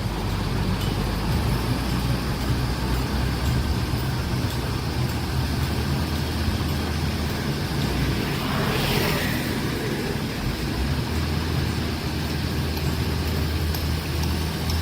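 Heavy diesel engine of construction machinery running steadily, with a brief hiss about nine seconds in.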